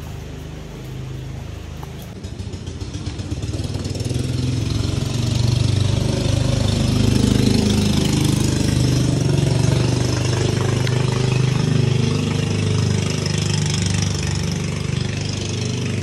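An engine running steadily; it grows louder a few seconds in, then holds.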